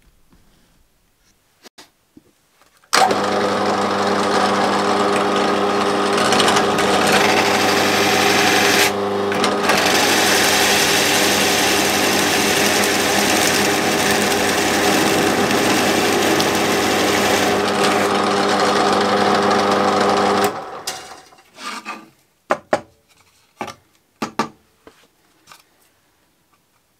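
Parkside bench drill press running, its Forstner bit boring a hinge-cup hole into a chipboard panel: the motor starts about three seconds in and runs steadily with a cutting hiss that briefly lets up once, then is switched off and winds down, followed by a few light knocks.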